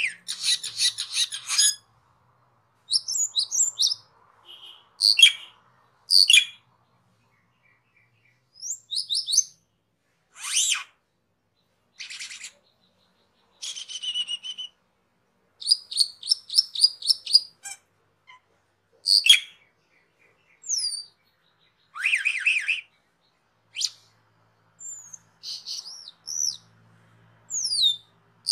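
Asian glossy starling (cucak keling) calling in short separate phrases: bursts of rapid chattering notes and thin, high falling whistles, with pauses of a second or two between them.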